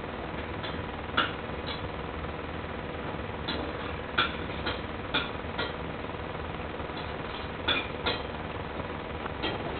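A cat batting a noodle around on a tiled floor: about a dozen light, irregular taps and clicks of paws and noodle on the tiles, over a steady faint hum.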